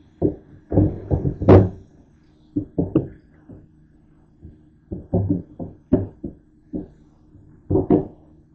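Dishes and a plastic container knocking and clunking against each other and the stainless steel sink while being hand-washed: irregular dull knocks in small bunches, the loudest about one and a half seconds in.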